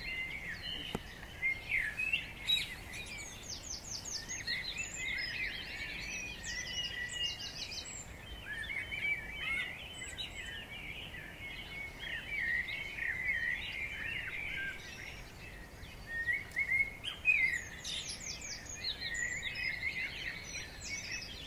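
Birdsong: continuous chirping and warbling, with bursts of rapid, very high trills a couple of seconds in, again about a third of the way through, and near the end.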